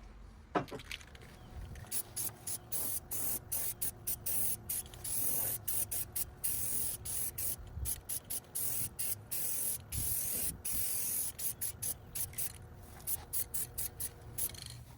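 Pressurised spray hissing in many quick bursts, mostly short with a few held for about a second, with a click about half a second in.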